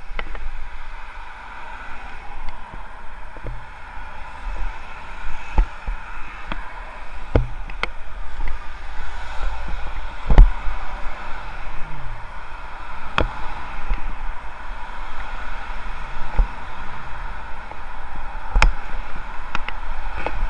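Bicycle ride on a slab-paved pavement beside a road, heard through a helmet-mounted action camera. A steady rushing hiss of wind and traffic with low rumble is broken by sharp knocks and rattles every second or few, as the bike jolts over the joints between the paving slabs. The loudest knock comes about halfway through.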